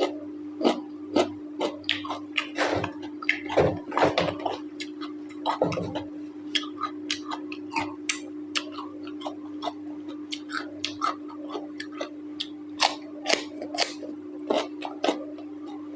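Close-miked eating: irregular wet chewing, smacking and mouth clicks from someone eating mutton curry with rice, with a steady low hum underneath.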